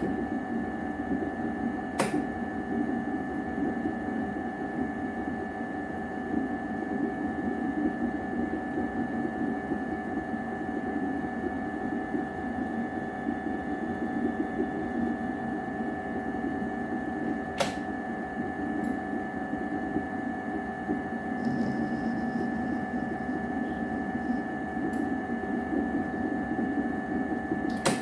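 A small electric motor running steadily, switched on suddenly, with a couple of sharp clicks over it.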